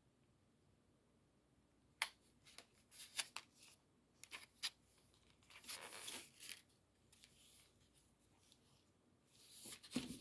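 Faint handling noises: a string of sharp clicks and taps about two to five seconds in, then a brief rustle around six seconds and another near the end.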